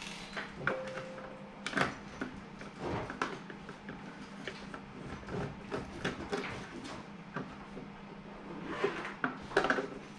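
A plastic device enclosure being handled and fitted together on a wooden tabletop: scattered clicks, knocks and light scrapes, the loudest about two seconds in and near the end, over a faint steady hum.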